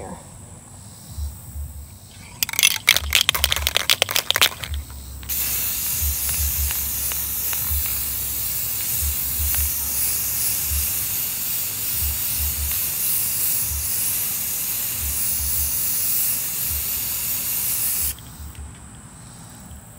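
Aerosol can of clear gloss spray paint rattling rapidly for about two seconds as it is shaken, then spraying in one long steady hiss of about thirteen seconds that cuts off suddenly near the end.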